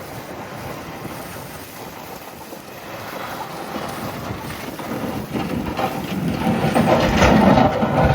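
A large vehicle approaching and passing close by, its rumble growing louder through the middle and peaking near the end before it starts to fade.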